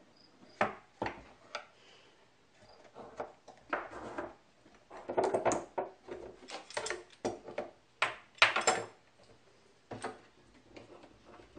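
Metal bar clamps and thin wooden strips being handled on a workbench: irregular knocks and clatters as the clamps are slid into place and tightened, clamping strips to a panel's end-grain edge for a glue-up. The loudest clatters come in quick clusters about halfway through and again about two-thirds through.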